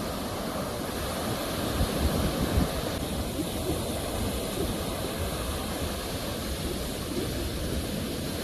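Ocean waves breaking and washing on a shore: a steady surf noise, swelling slightly about two seconds in.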